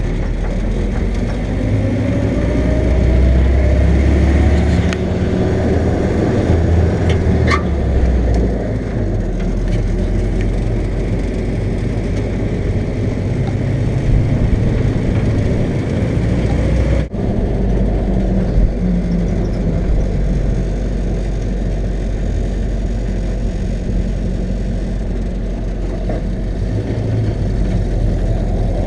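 1946 Willys CJ-2A's four-cylinder Go Devil flathead engine running as the Jeep is driven, its pitch rising as it accelerates in the first few seconds and again near the end.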